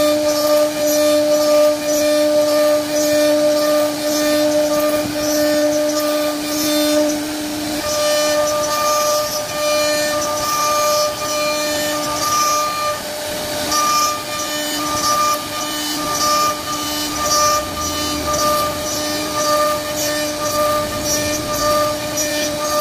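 CNC wood-carving router spindle running with a steady high whine while the bit cuts into wood, with a fluctuating rasp of cutting on top. The lowest tone of the whine fades about a third of the way through.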